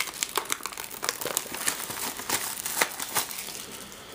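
Plastic shrink wrap on a cardboard booster box crinkling and crackling in quick, irregular snaps as fingers pick and tear at it. The wrap is tight and hard to open by hand without a knife.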